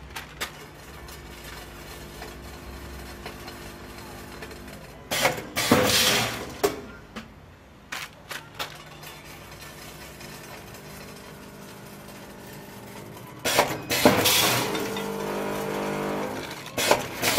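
Vertical form-fill-seal pouch packing machine running with a steady hum. Two loud rushing bursts of a second or more come about eight seconds apart, with a few sharp clicks between them.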